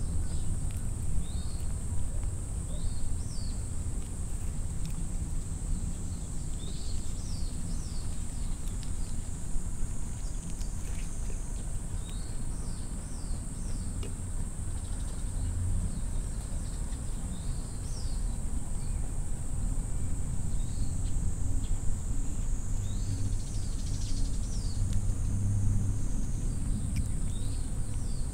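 Small birds chirping in short calls every second or two over a steady, high-pitched insect drone, with a low steady rumble underneath.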